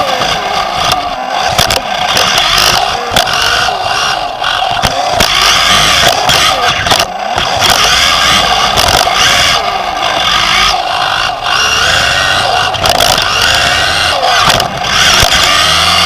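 Onboard sound of a 1/10-scale 2WD electric off-road buggy at racing speed. The electric motor and drivetrain give a whine that rises and falls in pitch with the throttle, over tyre and chassis noise on the dirt track.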